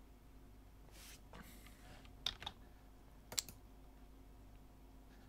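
A few sharp clicks from computer input, two close together a little past two seconds in and another about three and a half seconds in, after a soft rustle, over a faint steady hum.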